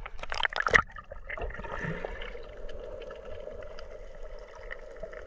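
Water splashing and clicking around the microphone as it is dipped below the surface, loudest just before a second in. Then a steady, muffled underwater hum and gurgle.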